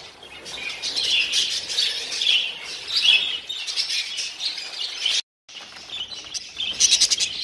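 A roomful of budgerigars chirping and chattering together, in a busy, continuous jumble of high twittering calls. A split-second break in the sound comes about five seconds in.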